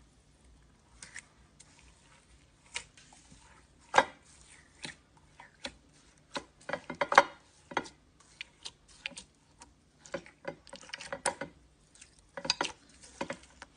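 Slime being squeezed and pressed by hand, giving irregular sticky clicks and pops that come thicker in the second half.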